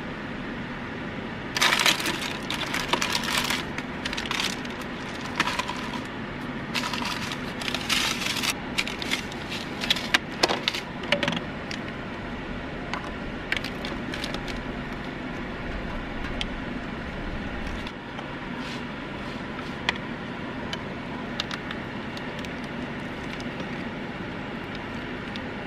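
Plastic food packaging being handled and opened: bursts of crinkling and crackling through the first half, then only scattered light clicks and taps from plastic containers. A steady low hum runs underneath.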